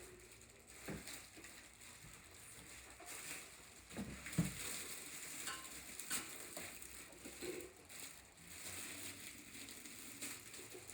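Rustling and handling noise from unpacking, with scattered light clicks and one heavier knock about four seconds in.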